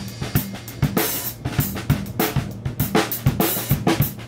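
Yamaha Stage Custom drum kit played with sticks: kick, snare and cymbal hits in a steady beat, about two to three strikes a second.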